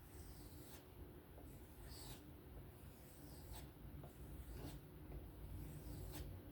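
A folding knife blade being drawn across a strop loaded with 1-micron compound, with no pressure. Faint, light rubbing strokes come about once a second, the final burr-removing and polishing stage of sharpening.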